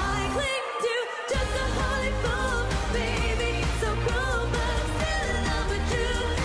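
A woman's voice singing over an electronic dance-pop track with a heavy beat. The bass and beat drop out for under a second about half a second in, then come back.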